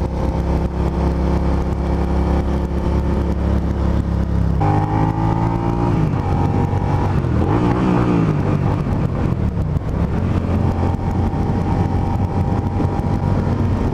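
Suzuki SV650S 645 cc V-twin engine running at a steady cruise. About four and a half seconds in, its pitch shifts down as the bike slows, then wavers up and down for a few seconds before settling steady again.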